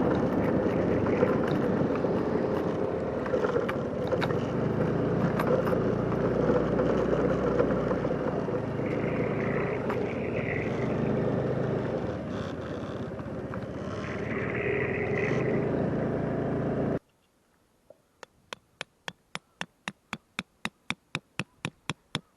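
Yamaha Cygnus Gryphus 125 cc scooter being ridden, engine running under steady wind noise on the microphone. About seventeen seconds in it cuts off abruptly, and a run of sharp taps follows, getting quicker.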